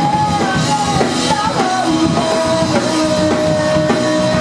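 Loud rock music with a drum beat and a long held melody line that slides and steps down in pitch.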